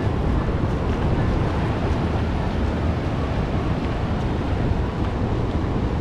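Steady wind noise on the microphone, low and continuous, over the wash of small surf waves running up the sand.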